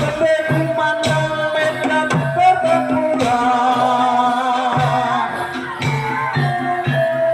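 Live Javanese traditional folk music for a horse-dance performance: a voice singing with a wavering, vibrato-laden line over drumming that keeps a steady beat.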